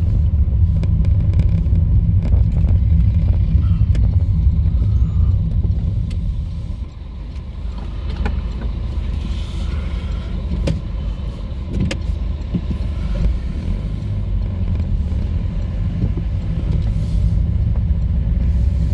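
Car interior road noise: a steady low rumble of tyres and engine while driving over cobbled paving. It drops off about seven seconds in as the car slows behind traffic, then builds again as the car drives on.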